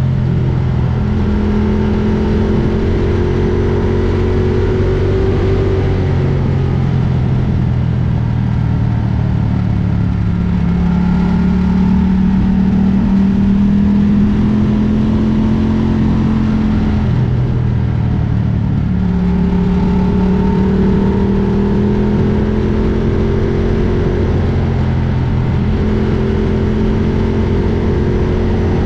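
Ducati Diavel's L-twin engine running under way. Its pitch climbs slowly and drops suddenly several times along the way, over a steady low rumble.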